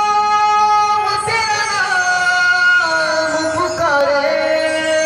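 Amplified lead melody from a banjo party band's sound check: a long held note slides down about a second in, then wavers through bending notes and settles on another held note near the end.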